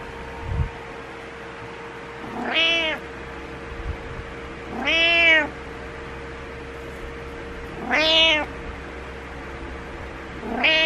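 Domestic cat meowing: four drawn-out meows about two and a half to three seconds apart, each rising and then falling in pitch, the last cut off at the end. These are morning wake-up meows telling its owner to get up.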